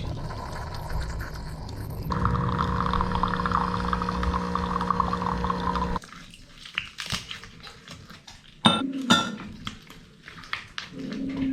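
A steady appliance hum with a hiss that cuts off sharply about six seconds in. Then come a spoon and cups clinking and knocking while coffee is made, with two louder clinks near the end.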